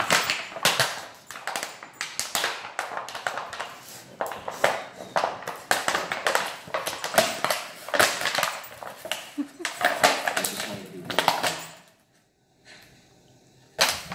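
Kelpie chewing and crunching an empty plastic water bottle, a dense run of crackles and crinkles. The crackling stops about twelve seconds in and starts again near the end.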